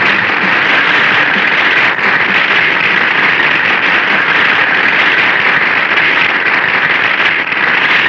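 A steady, loud hiss of noise with no tune or voice in it, strongest in the upper middle range.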